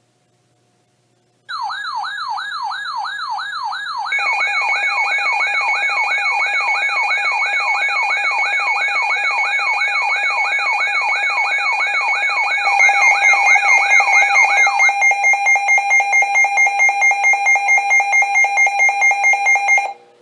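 Electronic alarm tones: a rapid siren-like warble of falling pitch sweeps, about two and a half a second, joined about four seconds in by steady tones, then giving way to a loud tone beeping about four times a second. It stops abruptly near the end.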